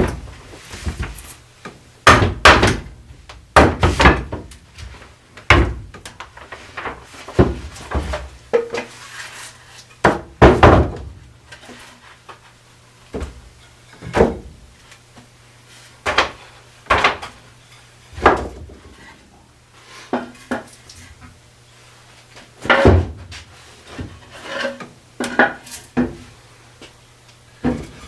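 Wooden chair joints being knocked apart and the parts handled: irregular wooden knocks and clacks, dozens over the stretch, loudest in clusters about two to five seconds in and about ten seconds in.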